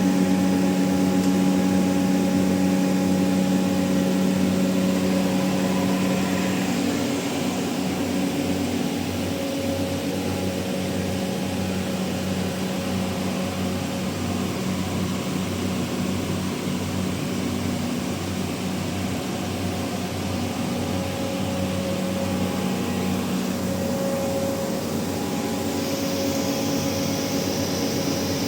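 Industrial machinery running steadily: a continuous mechanical hum with several steady tones. The lowest tone drops away about seven seconds in.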